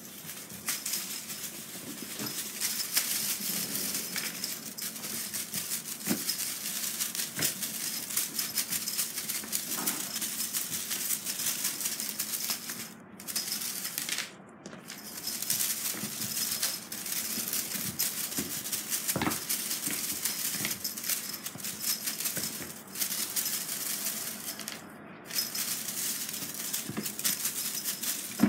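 Steady, dense rattling like a shaker being shaken, breaking off briefly a few times in the second half.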